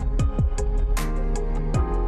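Background music with a steady electronic beat: deep bass drum hits that drop in pitch, high ticks and sustained chords.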